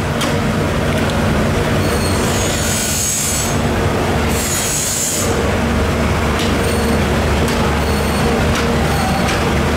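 A steady low machine hum with a broad noisy wash over it, two spells of high hiss in the first half, and scattered sharp clicks.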